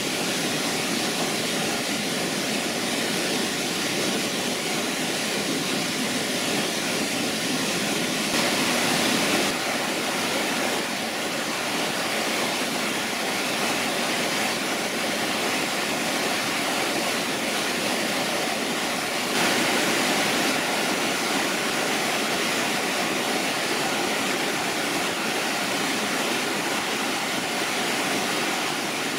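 Water rushing steadily down a small rocky waterfall and cascading mountain creek, a constant full hiss that shifts slightly in tone twice, about a third and two-thirds of the way through.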